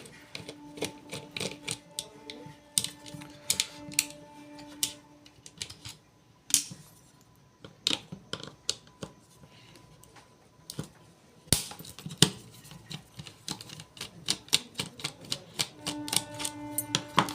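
Irregular clicks and taps of a tool and small plastic and metal parts as a hair trimmer is unscrewed and taken apart, with a sharper click about six and a half seconds in and again near the middle. Quiet background music with held notes plays in the first few seconds and again near the end.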